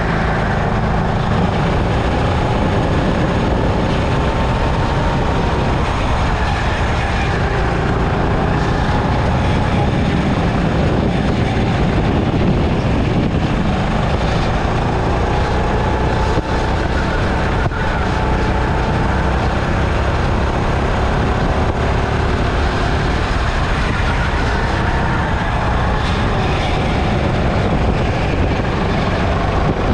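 Sodi hire go-kart's engine running hard on a lap, its pitch rising and falling with speed through the corners, over a steady rush of wind and road noise.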